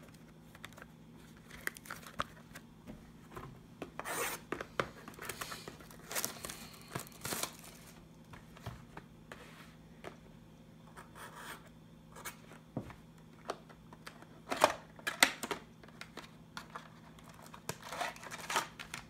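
A sealed trading-card box being worked open: a thin pointed stick scraping at the packaging, then hands tearing, rubbing and prying the cardboard and wrapping apart in scattered short scrapes and rustles. The loudest tearing comes about fifteen seconds in.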